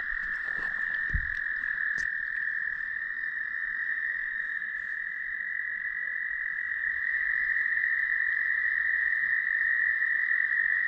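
Night chorus of frogs, a steady high-pitched calling that runs without a break, with a few faint clicks in the first couple of seconds.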